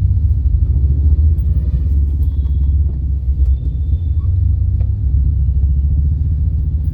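Steady low rumble of the Fiat Linea on the move, heard inside the cabin, with a couple of faint short high chirps in the middle: the dashboard squeak that the driver calls 'tu tu tu' and says comes without anything being touched.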